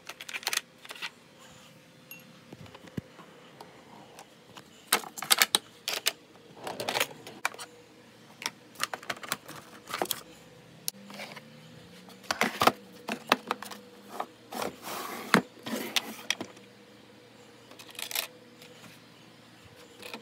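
Desk drawers and the small objects in their plastic organizer trays being handled: irregular clicks, rattles and knocks, some in quick clusters, over a faint steady hum.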